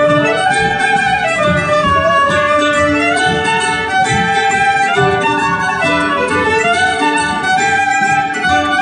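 Live folk band playing a morris dance tune, a fiddle carrying the melody over strummed guitar.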